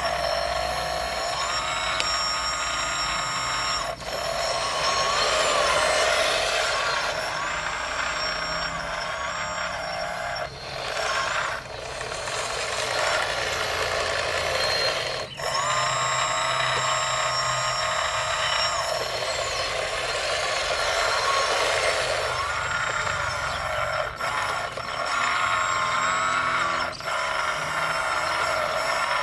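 Radio-controlled scale construction machines at work: their electric drive motors and hydraulic pumps whine, rising and falling in pitch as the machines drive and work, with several abrupt breaks.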